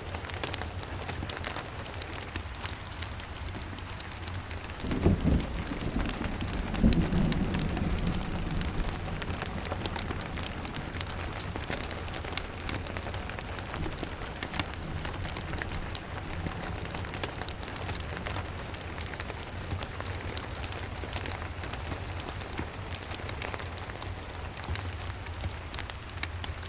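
Steady rain with scattered crackles from a wood fire. About five seconds in, a low rumble of distant thunder swells and rolls on for a few seconds before fading back under the rain.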